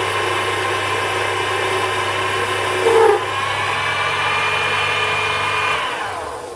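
Sherline lathe running at 2000 rpm, its motor whining steadily as a brazed carbide tool turns a steel part, with a brief louder squeal from the cut about three seconds in. Near the end the lathe is switched off and the motor spins down, its pitch falling.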